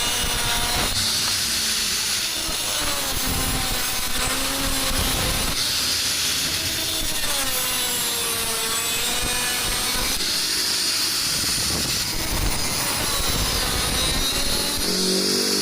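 Steel tube being cut by hand with slow back-and-forth saw strokes, each stroke a rasp about two seconds long, while the metal gives off a wavering squeal.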